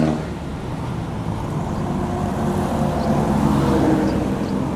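Traffic and road noise heard from an open electric chopper trike moving along a city street: a steady rush, with a faint hum that rises a little past the middle.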